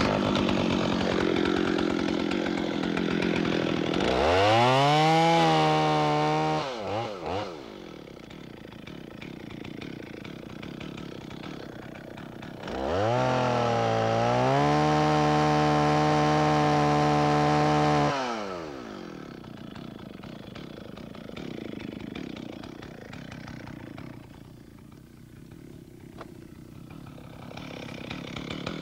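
Two-stroke chainsaw cutting a downed log. It runs under load at first, revs up high for about two seconds, and drops back to idle. A few seconds later it goes to full throttle for about five seconds, then falls back to idle. The cuts go first from beneath the log to relieve a bottom bind, then from the top to finish.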